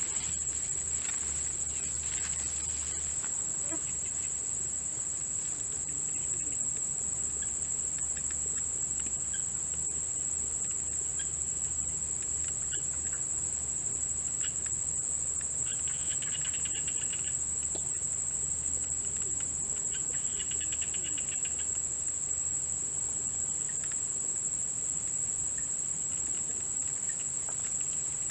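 Steady, high-pitched chorus of crickets trilling without a break, with a shorter, lower trill joining in twice partway through.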